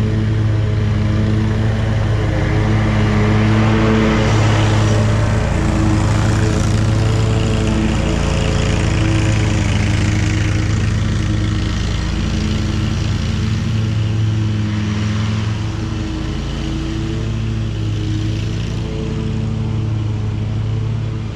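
Hustler zero-turn riding mower running steadily while mowing: a constant engine hum with a rushing noise of the deck and blades, loudest a few seconds in.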